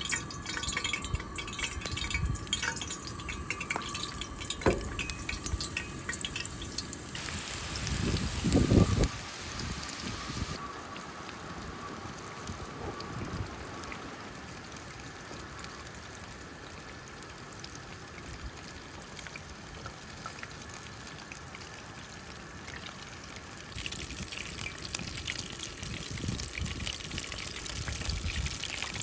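Crab rangoon frying in hot oil on a camp stove, a steady crackling sizzle that thins out in the middle and picks up again near the end. A louder low rumble comes about eight seconds in.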